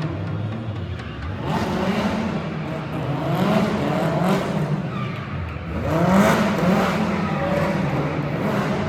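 BMW M3 E30 rally car's S14 four-cylinder engine revving hard, its pitch repeatedly rising and dropping back. It grows louder about a second and a half in and again around six seconds.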